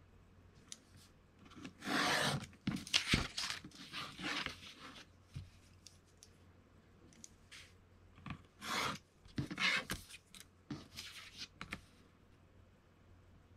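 Utility knife blade drawn along a metal ruler, slicing through paper-faced styrene board in short scraping strokes that come in two groups, one about two seconds in and one past the middle.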